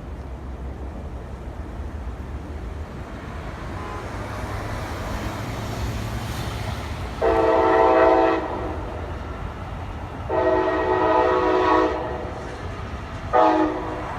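Brightline passenger train approaching with a low rumble that builds, then sounding its air horn in a multi-note chord: two long blasts and a short one. This is the start of the long-long-short-long grade-crossing signal.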